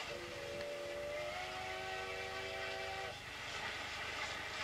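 Train whistle sounding a chord of several notes for about three seconds, its pitch stepping up slightly a little over a second in, over a steady hiss and rumble of a running train.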